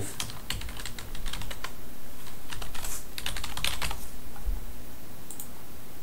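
Typing on a computer keyboard: a quick run of key clicks for about four seconds, then a couple of scattered keystrokes.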